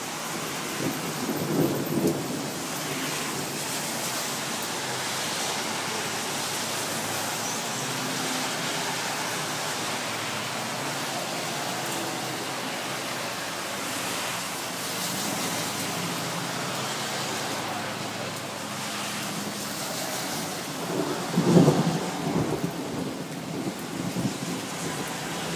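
Steady rain falling, with two rolls of thunder: a short one a second or two in and a louder, longer one a little past twenty seconds in.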